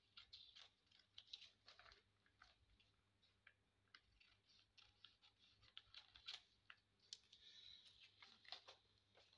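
Faint, irregular snips of scissors cutting paper, with light paper rustling as the sheet is handled.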